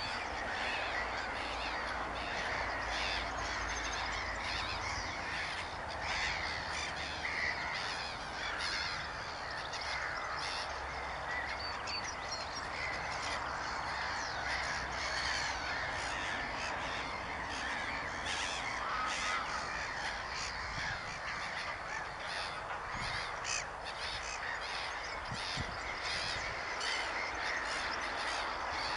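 A dense, unbroken chorus of many birds calling at once, a crowd of short overlapping calls.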